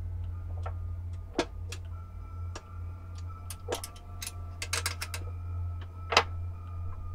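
Cardboard jigsaw puzzle pieces clicking and tapping on a tabletop as they are handled and pressed into place, in irregular small clicks with a quick cluster of them about halfway through. A low steady hum and faint held tones run underneath.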